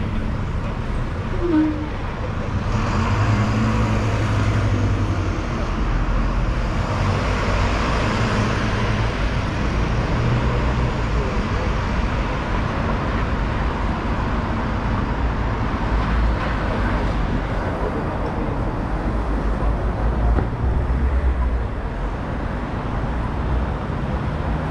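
Street traffic: motor vehicle engines running and passing, over steady road noise that swells and fades as vehicles go by.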